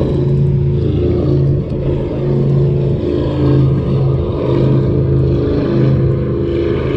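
Motorboat engine running, a loud steady low hum that wavers in strength.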